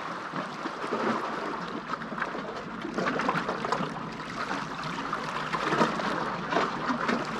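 Small waves lapping and splashing against shoreline rocks: a steady wash of water with many small splashes, a little louder about three seconds in.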